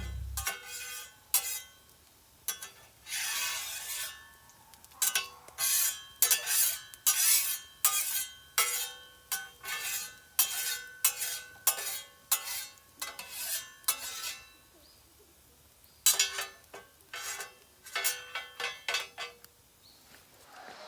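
Metal utensil scraping and clinking against a metal pan in irregular strokes, each leaving a brief metallic ring, as food is stirred and worked in it.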